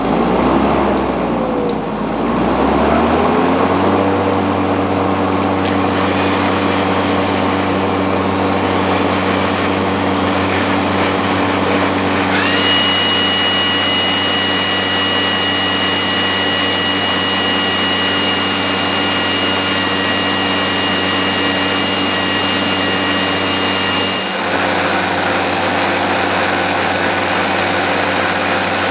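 AEG 18V cordless brushless garden-tool motors running. One motor starts suddenly and settles into a steady hum within a few seconds. About twelve seconds in a high steady whine joins it, and it drops out near twenty-four seconds.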